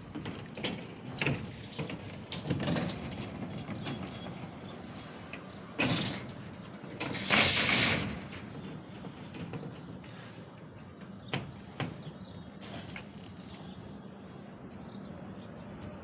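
Steel reinforcement bars being handled while a rebar mesh is laid: scattered knocks and clinks of metal, with a loud rasping scrape lasting about a second around the middle.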